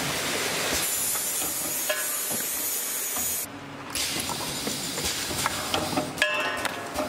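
Rotary honey filling and sealing machine running, with a loud hiss of compressed air from its pneumatic cylinders that drops out briefly about halfway. Mechanical clicks sound throughout, and there is a short metallic rattle near the end.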